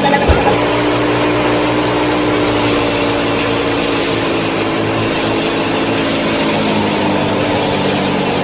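Small motor of a homemade miniature farm machine running steadily with a constant hum and whine, with a few brief knocks near the start.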